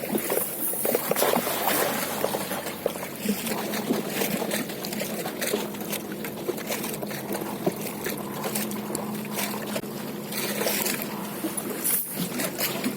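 Water splashing and trickling around a small boat on a river, with many small irregular splashes and drips over a steady low hum.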